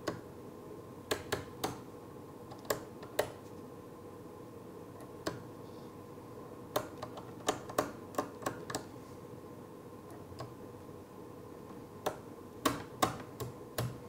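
Plastic paddle toggle switches on a PiDP-11/70 replica front panel being flipped by hand, one sharp click per switch, toggling a program into memory. The clicks come irregularly, in quick runs of three to five with short pauses between.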